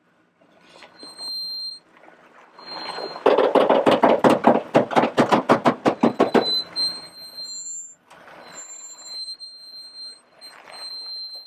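Chevrolet Suburban's brakes squealing, a high steady shriek that comes and goes. In the middle, about three seconds of loud rapid rubbing, some six strokes a second.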